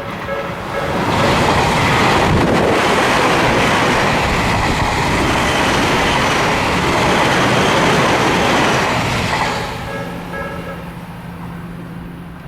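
An electric commuter train passes over the level crossing: wheel and running noise rises about a second in, stays loud for about eight seconds, then falls away. The crossing's warning bell rings in steady repeating tones at the start and again faintly as the train clears.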